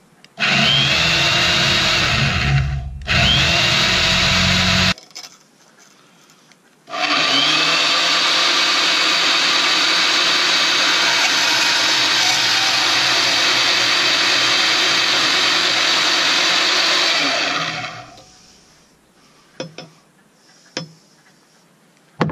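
Harbor Freight Bauer portable bandsaw running on a bench table. It starts about half a second in, cuts out briefly, and runs again for a couple of seconds before stopping. It then runs for about ten seconds while a pipe is fed into the blade, and winds down.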